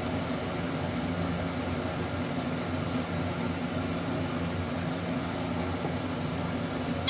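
Steady low mechanical hum with an even hiss over it, as from a running fan motor.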